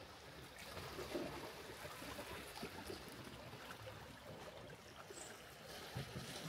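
Faint, steady wash of moving water, with a few light knocks.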